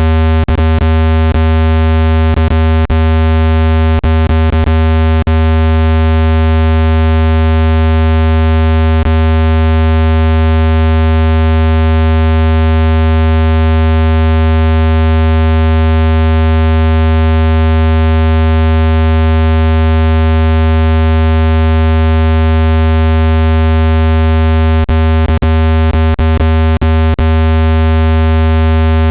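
Loud, steady low buzzing tone from a phone-speaker water-ejection sound file, played at full volume so the speaker cone vibrates water droplets out of the grille. It holds one unchanging pitch with a dense set of overtones. Brief clicks crackle through it near the start and again near the end.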